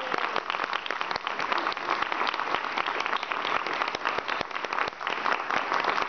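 Audience applauding steadily, a dense patter of many hands clapping.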